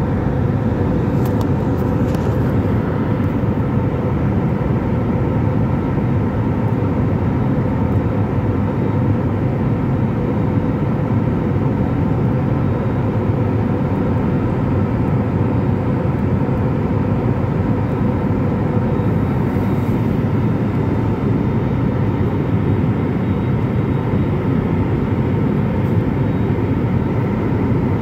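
Airliner cabin noise from the wing-mounted turbofan engines and the airflow during the climb after takeoff: a steady, even rushing drone with a faint steady hum in it.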